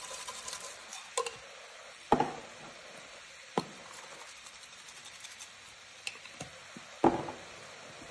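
A square metal spice shaker shaken over a stainless steel pot, giving several separate sharp clicks and knocks, the loudest about two seconds in and near the end, over a faint steady hiss from the frying food.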